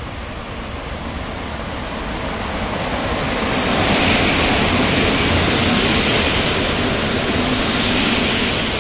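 EP07 electric locomotive and the Intercity passenger coaches behind it rolling past close by as the train pulls in to stop: a rushing noise of wheels and running gear. It grows louder from about two seconds in, stays loud from about four seconds on as the locomotive and coaches pass, and eases slightly near the end.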